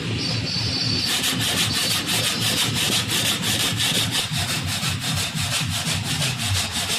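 Hand saw cutting a piece of wood clamped in a bench vise, in quick, even back-and-forth strokes that start about a second in.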